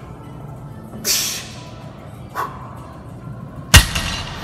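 A barbell loaded to 405 lb with black rubber-coated plates is set down on the gym floor after the last rep of a deadlift, with a single sharp, loud impact near the end. Before it come two shorter hissing bursts.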